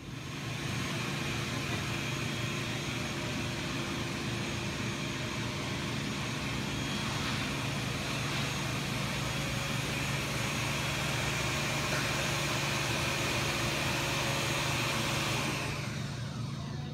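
Steady machine-like noise: a constant low hum under an even hiss. It fades out near the end.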